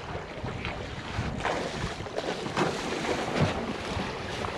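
Wind buffeting the microphone over the wash of water along a sailboat's hull while under sail.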